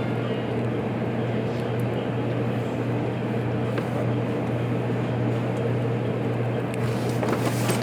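Steady electrical hum and rumble inside the cab of a JR Kyushu 783 series train, with a constant low tone.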